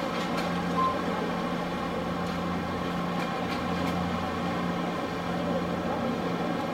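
Steady low drone of boat engines running on the river, with a constant hum and a few faint clicks.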